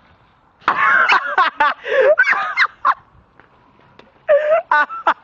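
Teenage boys laughing hard, with high-pitched shrieking cackles, in two loud bouts: the first from just under a second in to about three seconds, the second from about four seconds in, broken into quick ha-ha pulses.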